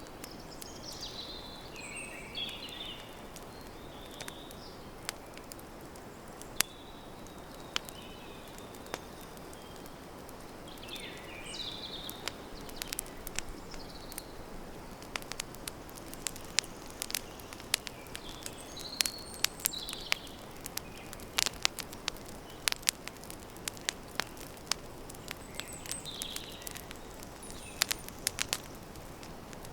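Campfire crackling: sharp wood pops over a low steady hiss, the pops coming thicker in the second half. Birds chirp briefly every few seconds.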